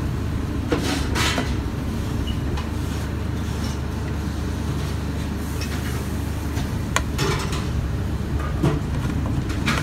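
Steady low hum of kitchen machinery, with a few light clicks and knocks.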